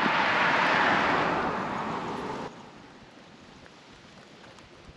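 A passing vehicle: a broad rushing noise that swells to a peak about a second in, then cuts off abruptly, leaving quiet outdoor background.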